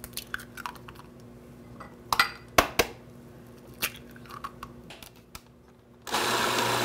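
A few sharp knocks and clicks of kitchen handling, then a food processor switches on about six seconds in and runs steadily, blending the ingredients.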